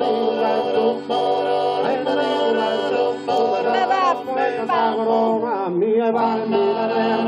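Unaccompanied male voices singing in the Sardinian tenore style: low voices hold a steady drone while a lead voice winds its melody above them.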